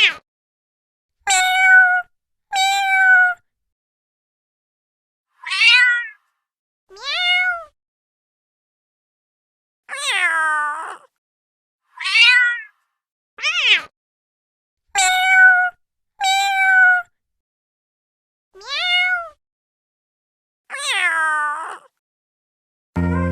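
Domestic cat meowing: about a dozen separate meows, each under a second long, with silent gaps between them.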